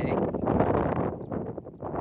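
Shallow muddy paddy water splashing and sloshing as hands grab at a fish under the surface. The splashing is heaviest in the first second and eases off about a second and a half in.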